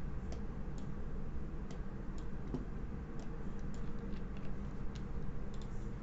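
Faint, irregularly spaced clicks over a steady low hum of room tone.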